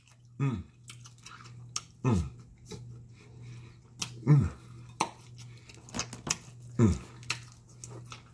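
A man chewing a mouthful of food with small wet mouth clicks, letting out four short falling 'mmm' hums of enjoyment a couple of seconds apart.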